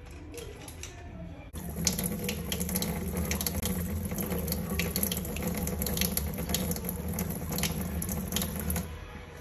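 Tap water running into a stainless-steel kitchen sink and a basin of water, with splashing; it comes on suddenly about a second and a half in and stops near the end.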